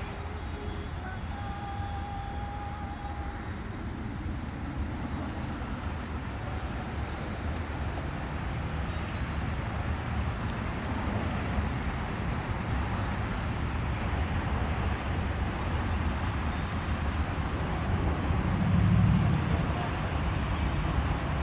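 Steady road traffic noise, a low rumble with an even hiss over it, swelling briefly near the end.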